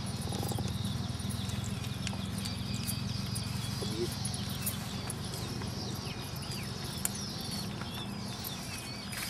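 Hand-weeding among crop rows: irregular small clicks, scratches and rustles as weeds are pulled and soil is worked, over a steady low hum.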